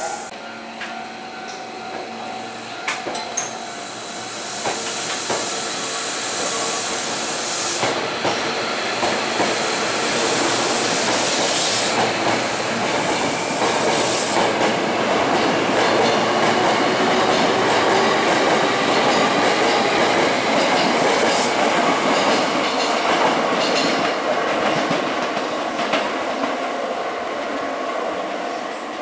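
Hankyu electric commuter train moving along the platform, its wheels clattering over rail joints. The sound grows louder a few seconds in and stays loud.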